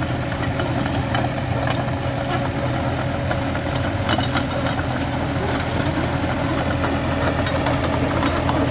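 Excavator's diesel engine running steadily at an even pitch, with a few sharp clicks scattered through.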